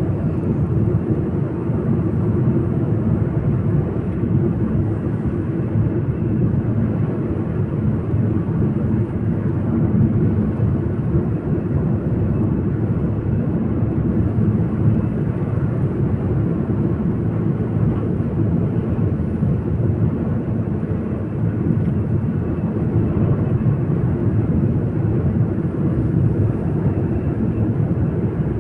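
Steady low rumble of a moving vehicle, road and engine noise, running evenly without breaks or changes.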